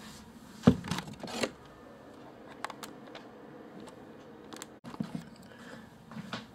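Handling noise from a video camera being grabbed and moved by hand: a sharp knock about a second in, then scattered clicks, rubbing and bumps, with a brief dropout near the middle.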